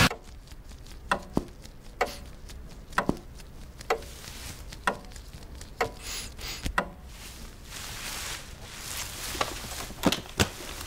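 Short, sharp ticks roughly once a second over a low, steady background, some of them doubled, with a quieter gap a little past the middle.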